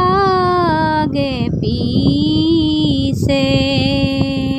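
A woman singing a Borgeet, an Assamese devotional song, solo. She draws out long held vowels that bend slowly in pitch, with two short breaths between phrases.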